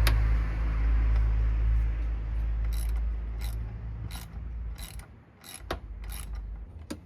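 Ratchet wrench tightening a bolt on the intercooler, a series of short clicking strokes about every two-thirds of a second in the second half. Under the first part sits a heavy low rumble.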